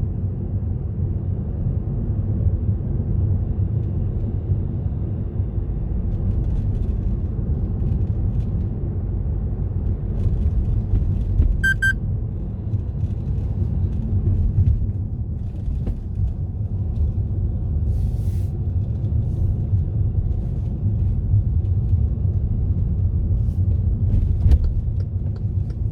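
Car driving along a road: a steady low rumble of engine and tyres. About twelve seconds in there is one short electronic beep.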